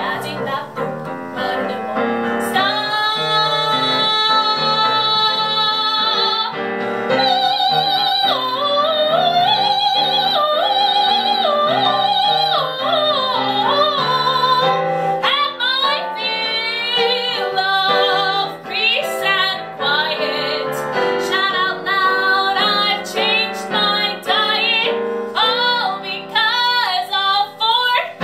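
A young woman singing a solo with wide vibrato, accompanied on piano. She holds one long high note early on, then sings quicker, shorter notes toward the end.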